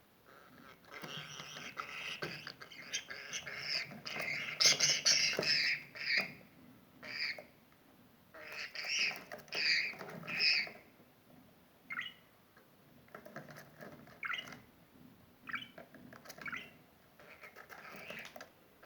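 Budgerigar calling: a dense, rough chatter of calls, loudest about four to six seconds in, then a string of short, sharp chirps about a second apart.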